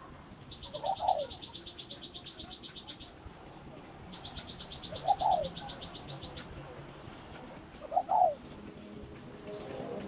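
Spotted dove cooing, three short phrases about three seconds apart. Twice in the first part, a high rapid trill of about eight pulses a second runs for two to three seconds.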